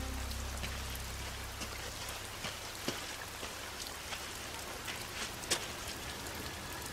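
Steady rain falling, with a few louder drops striking now and then.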